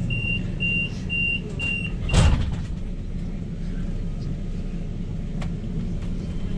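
Tram door-closing warning: a steady, even high beep about twice a second, ending about two seconds in with one loud, sharp sound as the sliding doors shut. A steady low hum from the stopped tram runs underneath.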